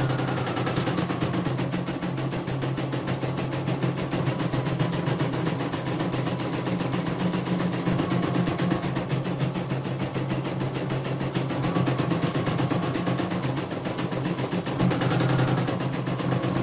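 Computerized household embroidery machine stitching: the needle bar makes a fast, even rattle of stitches over a steady motor hum while the hoop carriage moves the fabric. This is a test run after servicing.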